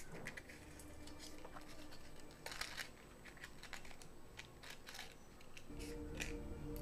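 Faint handling sounds of a cardboard matchbox being slid open and wooden matchsticks taken out, small scattered clicks and scratches with light crinkles of aluminium foil. Soft background music comes in near the end.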